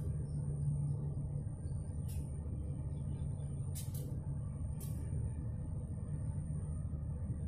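Steady low engine rumble with a constant hum, broken by a few short high hisses.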